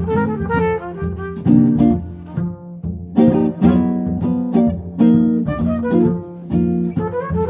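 Live jazz trio playing a blues: trumpet over archtop guitar and plucked double bass.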